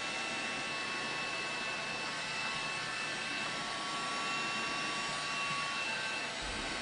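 Electric heat gun running steadily, a blower hiss with a thin faint whine, as it shrinks heat-shrink tubing over a crimped battery cable contact.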